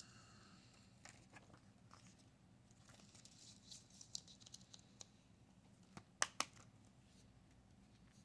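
Faint rustling of paper inserts being handled in an open 4K Blu-ray case, with two sharp clicks about six seconds in.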